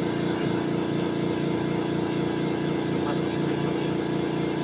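Air compressor running steadily, a low, even mechanical hum.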